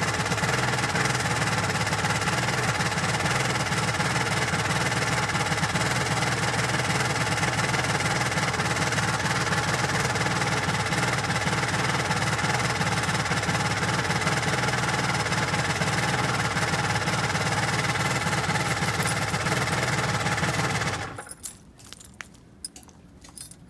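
Yamaha R1-Z's 250 cc two-stroke parallel twin idling steadily, heard at the silencer, in the state just before it seized. The engine stops about 21 seconds in, leaving only a few faint clicks.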